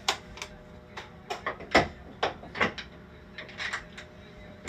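A run of irregular clicks and knocks, a dozen or so over a few seconds, with the loudest knock a little under two seconds in.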